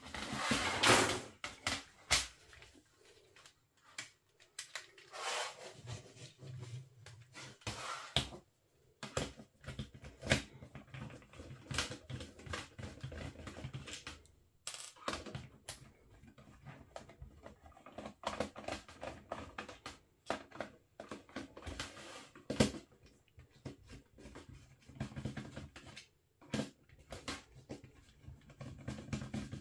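Plastic housing of an electric fly-swatter racket being taken apart by hand: irregular clicks, taps and scrapes of plastic parts being handled and prised apart.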